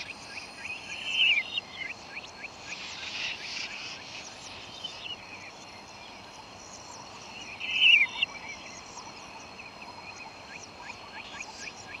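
Tropical rainforest ambience: birds calling with many short quick chirps over a steady high-pitched insect drone. A louder bird phrase of rapid notes stands out twice, about a second in and again near eight seconds.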